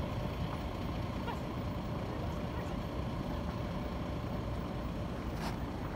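Steady low outdoor rumble, with faint distant voices. A single brief sharp sound comes about five and a half seconds in.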